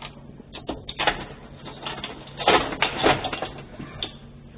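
Electric guitar played as free improvisation with noisy extended techniques: irregular scratchy, scraping bursts, the loudest cluster in the middle and a last short one near the end, over a steady amplifier hum.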